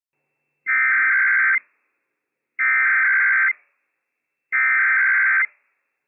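Emergency Alert System SAME header tones over NOAA Weather Radio: three identical bursts of buzzing two-tone digital data, each just under a second long, a second or so apart. They open a Required Weekly Test alert.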